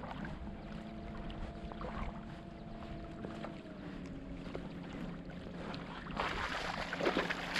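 Boat's outboard motor running steadily under way, with a low rumble beneath it. About six seconds in a louder rushing noise of water and wind comes in.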